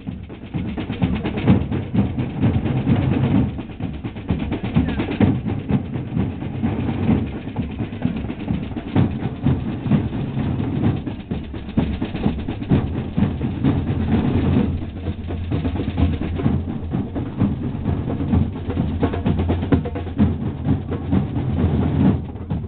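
A group of drummers beating snare drums with sticks, continuous drumming throughout.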